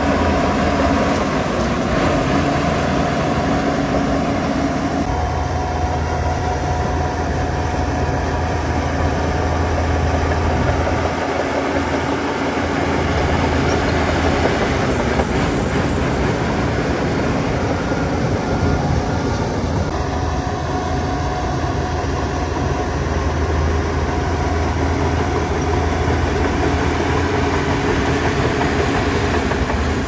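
Diesel engine of heavy earthmoving machinery running steadily, with a strong low hum; its note shifts about five seconds in.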